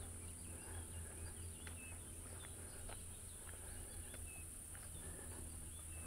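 Outdoor summer ambience of insects and birds: a steady high-pitched insect hum, with short bird chirps scattered through, over a low rumble.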